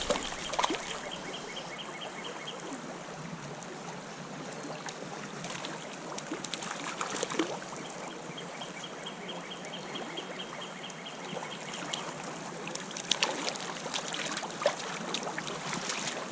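Creek water flowing steadily, with scattered short splashes while a hooked brown trout is played. A fast, regular high ticking comes in twice, at the start and again past the middle.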